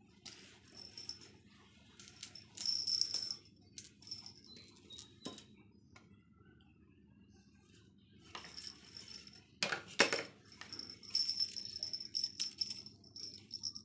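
Jingling, rattling shakes of a cat teaser toy on a string, in short bursts: once about three seconds in, then a longer run from about eight seconds in, with a few sharper clatters around ten seconds.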